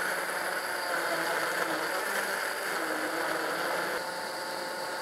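Countertop blender running steadily at high speed, puréeing chunks of cucumber, fresh herbs and thick Greek yogurt into a smooth soup: a loud, even motor whir with the churning of the thick mixture.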